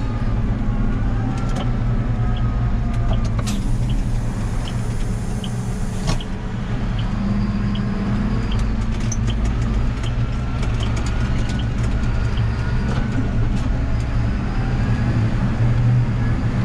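Tractor engine running steadily under way, heard from inside the cab, with a faint whine that rises and falls and scattered light clicks and rattles. A hiss comes in about three and a half seconds in and lasts a couple of seconds.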